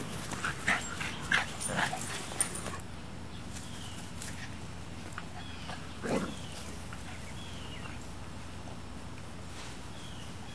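Boxer puppy and English Mastiff play-fighting: a quick run of short barks and yelps in the first two and a half seconds, then one more about six seconds in.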